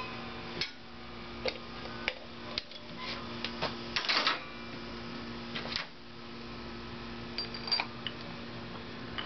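Scattered metallic clicks and clinks of a motorcycle's roller primary chain, compensator sprocket and hand tools being handled, with a brief cluster of rattling about four seconds in. A steady electrical hum sits underneath.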